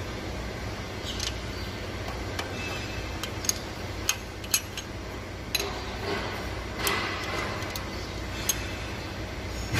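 Scattered sharp metallic clicks and taps of a hand wrench working on the rocker arms and valve adjusting screws of a Deutz TD 2011 L04 cylinder head, during valve clearance adjustment, over a steady low hum.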